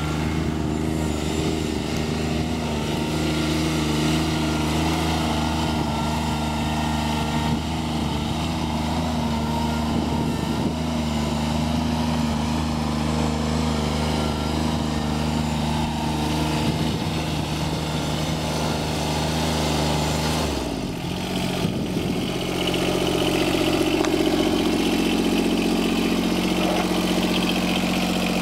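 John Deere 2653A trim mower's Yanmar diesel engine running steadily under the moving mower. About twenty seconds in the engine note changes abruptly, then it runs on steady and a little louder.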